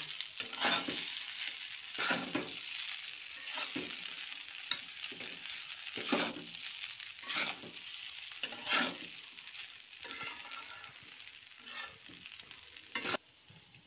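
Blue plastic spatula stirring and scraping poha (flattened rice) around a metal kadhai, a scrape every second or two, over a light sizzle from the hot pan. The stirring stops just before the end.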